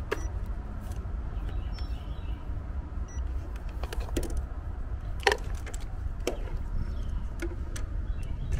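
A few sharp clicks and light rattles from a clamp meter and its test leads being handled, the loudest about five seconds in, over a steady low rumble.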